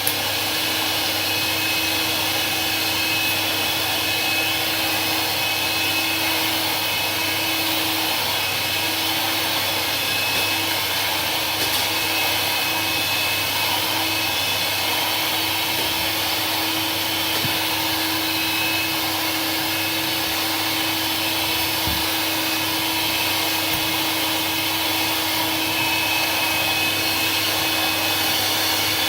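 Hoover Portapower S1015-003 vacuum cleaner running at full power, a steady motor drone with a high whine over it.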